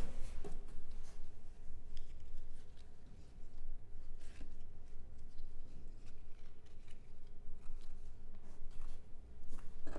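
Soft, scattered ticks and rustles of playing cards being handled and set down to build a house of cards, over a steady low room hum.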